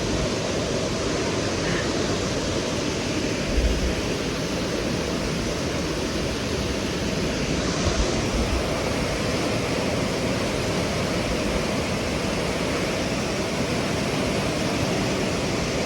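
Steady rushing of the Arun River's water, with a few brief low wind bumps on the microphone.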